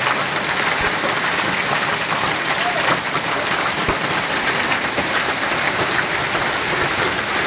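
Hailstorm: a steady dense noise of hailstones falling thick and fast onto the ground and foliage.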